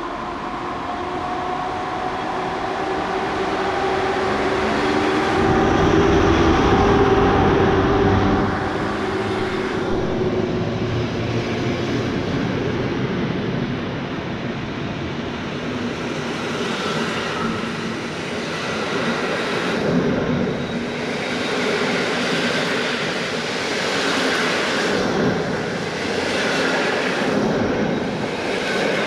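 EP07 electric locomotive pulling a passenger train away from the platform: a steady electrical hum, loudest as the locomotive passes about six to eight seconds in, then the coaches rolling by with their wheels knocking over the track joints every second or two.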